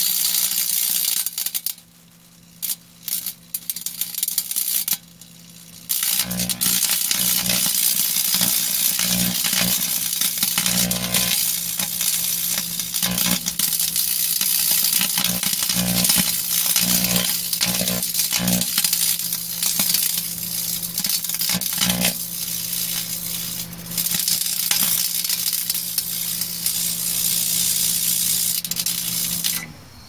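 Electrical arcing and plasma from an AMD Sempron 2200+ CPU being microwaved: loud crackling and sizzling over the low hum of the running microwave oven. It sputters on and off during the first few seconds, then crackles steadily and cuts off just before the end as the oven stops.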